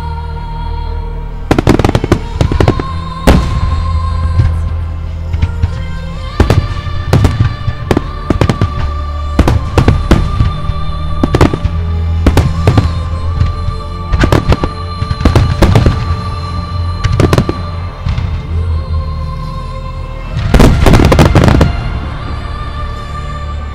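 Aerial fireworks shells of a music starmine bursting in quick succession over music, with a dense barrage of bursts near the end.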